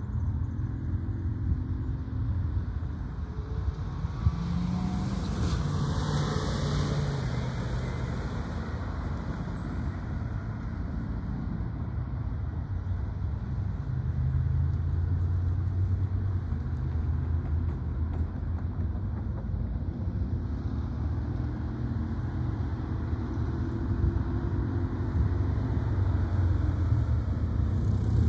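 EMD SD70ACe diesel-electric locomotive engine rumbling steadily as the train approaches slowly, with a car passing on the road about six seconds in.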